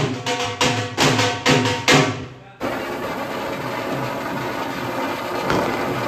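Dance music with a steady drum beat, cut off about two and a half seconds in by a steady hiss: a hand-held fountain firework spraying sparks.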